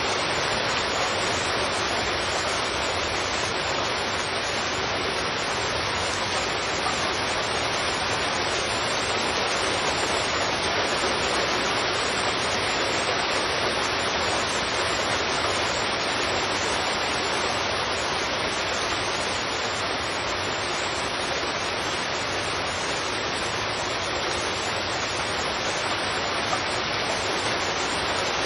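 Heavy rain falling steadily, a dense, even hiss without breaks.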